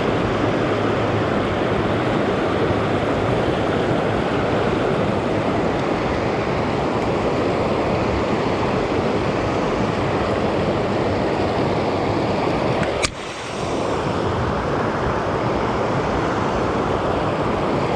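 Heavy rain pouring down on the water and the kayak: a loud, steady rushing hiss. It drops out briefly with a click about thirteen seconds in.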